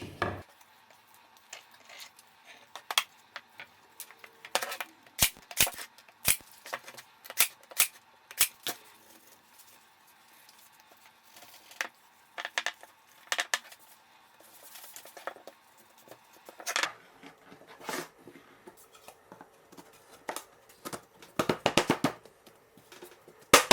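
Scattered sharp clicks and knocks of plywood drawer-box parts being handled and fastened together, with a quick run of knocks near the end.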